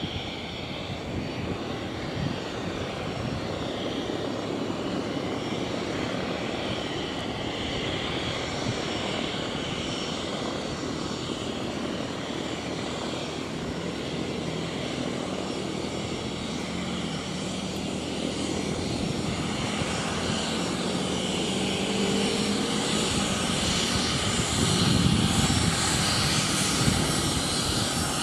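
Cessna Citation Mustang's twin Pratt & Whitney PW615F turbofans running at taxi power as the jet taxis: a steady jet rush and whine that grows louder and brighter over the last several seconds as the aircraft comes closer.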